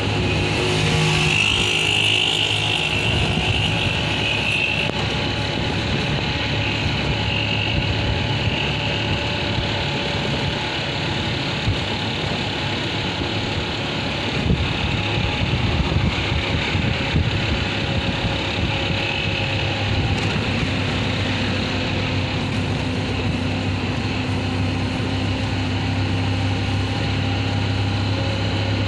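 Auto rickshaw's small engine running steadily as it drives along a road, heard from inside the open cab, with a constant low drone and road noise.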